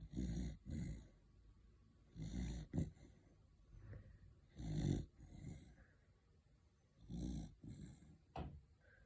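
A corgi snoring in its sleep: four snoring breaths about two and a half seconds apart, each in two parts.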